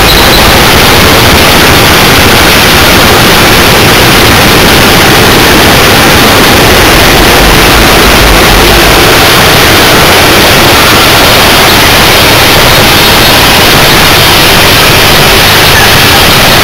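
Loud, steady, hiss-like noise in the cab of a moving Mount Washington Cog Railway steam locomotive, so loud that it overloads the microphone, with no clear beat.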